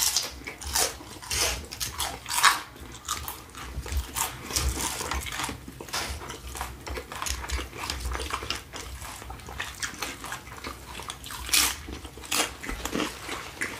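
People chewing and crunching tortilla chips in a taco salad, in many irregular crunches.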